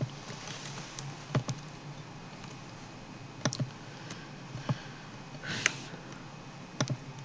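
Computer mouse and keyboard clicks: a handful of sharp clicks a second or two apart, several in quick pairs, over a low steady hum.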